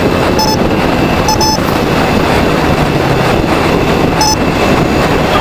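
Steady, loud wind and road noise rushing over the microphone of a moving motorcycle, with four short high beeps scattered through it.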